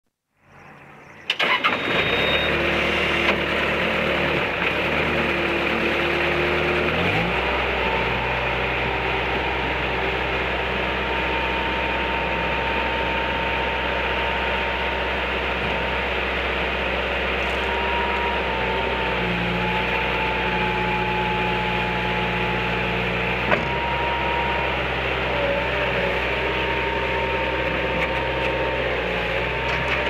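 1999 Bobcat 763 skid-steer loader's diesel engine starting. It cranks briefly and catches about a second in, idles, then is throttled up about seven seconds in to a steady higher speed. A thin whine from the hydraulics rides on top and wavers as the loader arms are raised and the machine is driven.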